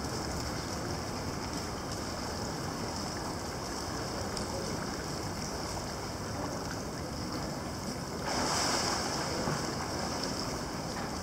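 Steady wash of indoor swimming pool ambience: water churning at the surface and along the overflow gutter, echoing in the hall. About eight seconds in, a louder rush of noise lasts for roughly two seconds.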